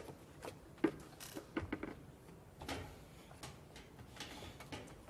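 Irregular light knocks and clunks against a metal oil drum as an actor climbs into it, with scuffing steps on the stage boards.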